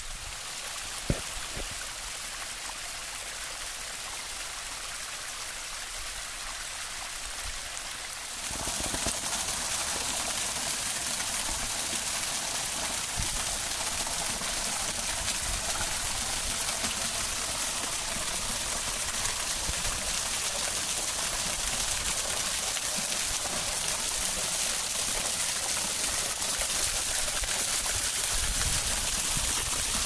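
Small waterfall: thin streams of water falling and splashing onto rocks, a steady rush that gets louder about eight seconds in. A single short click about a second in.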